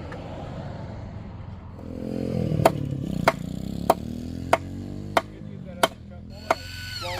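Seven sharp, evenly spaced hammer strikes, about one every two-thirds of a second, over an engine running steadily that comes up about two seconds in.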